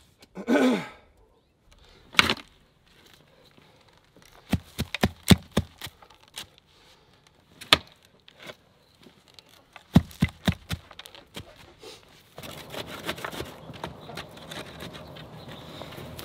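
Hand post hole diggers chopping and scraping into wet red clay: clusters of sharp thuds and clicks, followed by a steady hiss over the last few seconds.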